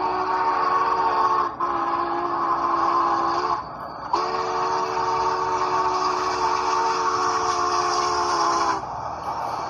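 Union Pacific 844's steam whistle, a chord of several tones, blown in three long blasts; the last is held about four and a half seconds. Each blast sags slightly in pitch as it ends.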